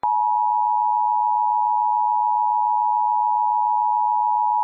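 Emergency Alert System attention signal: the steady two-tone alert tone (853 and 960 Hz sounded together), starting abruptly and held unbroken. It marks that an emergency alert message is about to follow.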